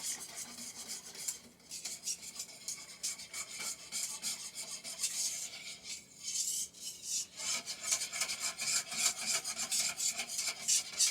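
A cooking utensil scraping rapidly and repeatedly against a wok while a thickening flour-and-milk sauce is stirred, in quick strokes several times a second.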